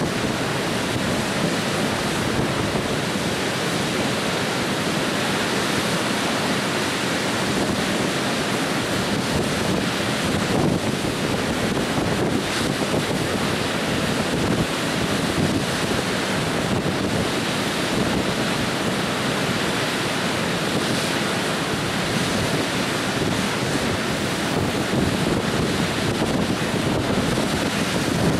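River water spilling over a low weir and churning in the foaming water below it: a steady, even rush.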